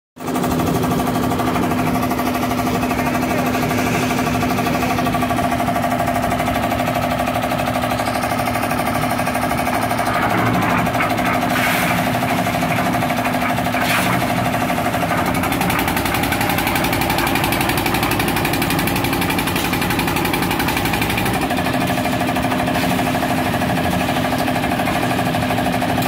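Concrete mixer's small stationary engine running steadily under load, with two sharp knocks about two seconds apart near the middle.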